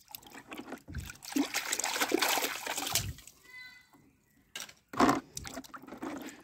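A hand swishing and splashing water in a plastic tub while washing a small plastic toy underwater. The splashing comes in two spells with a short lull a little past halfway.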